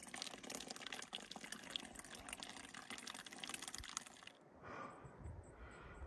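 Faint running water, a steady trickling hiss full of small splashy clicks, that cuts off suddenly about four seconds in.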